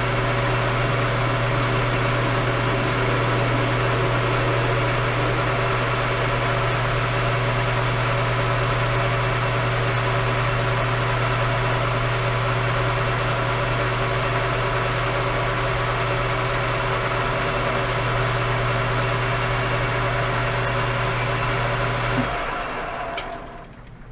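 Metal lathe running at about 578 RPM while turning down a shank: a steady motor and gear hum. It is switched off about 22 s in, and the hum falls away as the spindle spins down.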